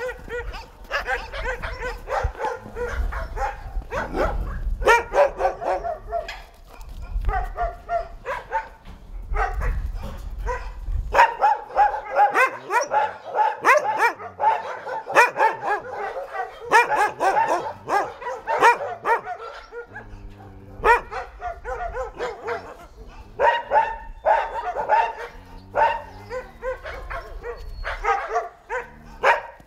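Several dogs barking and yapping in quick, overlapping volleys, the barking continuing with only brief let-ups.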